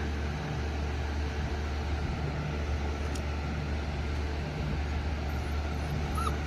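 Steady low rumble, with a short high whimper from a dog near the end.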